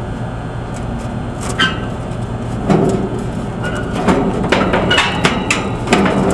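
Scattered metal clanks, knocks and scrapes from parts of an air-conditioner condenser being handled, growing busier from about three seconds in, over a steady low hum.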